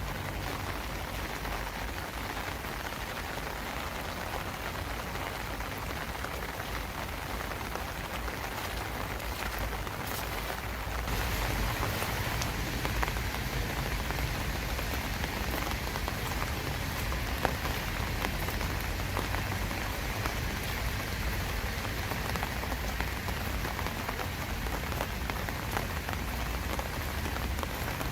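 Steady rain falling and pattering on surfaces, with fine individual drop ticks; it grows a little heavier about eleven seconds in.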